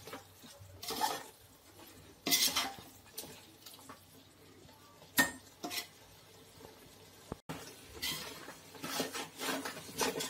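Metal ladle stirring and scraping thick chicken masala against the sides of a large metal pot, in groups of strokes with short pauses between. The masala is being sautéed until the oil separates.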